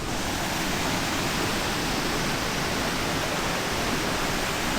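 Waterfall rushing: a steady, even rush of falling water over rocks.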